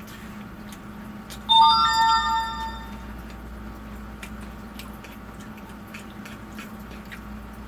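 A short electronic chime, like a phone notification tone, about one and a half seconds in: several bright tones start in quick succession and ring for about a second before fading, over a faint steady hum.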